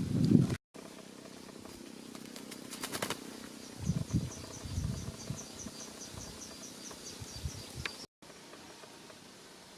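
Outdoor ambience with a fast run of high chirps, about six a second, lasting a few seconds, and a few low knocks.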